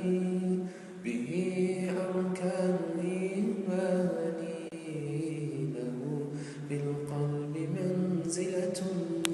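A male voice singing an unaccompanied Islamic nasheed in long, ornamented held notes, with no instruments. The melody steps down to a lower pitch about halfway through.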